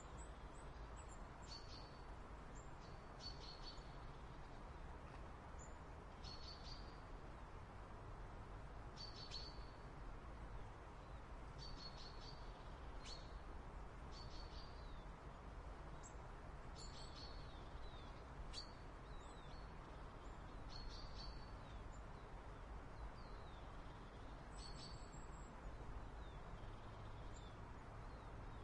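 Small birds giving short, high chirps every second or two, faint over a steady low background rumble.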